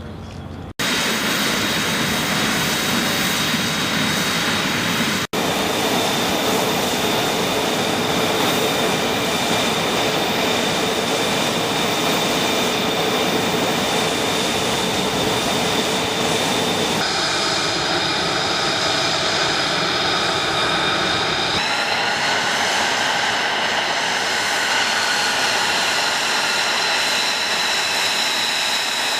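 Steady jet engine noise with a high whistling whine over a dense rush. It drops out for an instant about a second in and again about five seconds in, then its whistle tones shift pitch abruptly twice in the second half.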